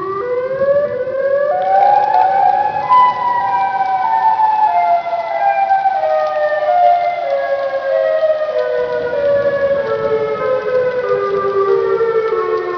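Siren wailing: its pitch climbs over about the first three seconds, then falls slowly in small stair-like steps through the rest.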